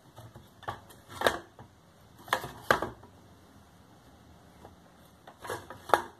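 Knives set into and knocking against the slots of a varnished bamboo knife block: a handful of separate clicks and knocks, the loudest a little over a second in, at about two and a half seconds, and near the end.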